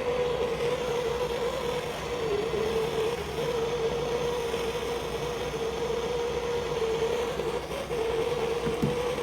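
Gas blowtorch flame burning steadily with a wavering hum, heating a 22 mm copper fitting for soldering.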